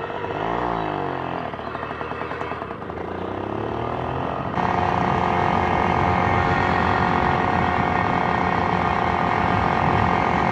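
Hercules Prima 6 moped's two-stroke engine under way: a quick rev up and down, then a steady climb in pitch, and about four and a half seconds in it steps up louder to a steady high-revving drone held under throttle.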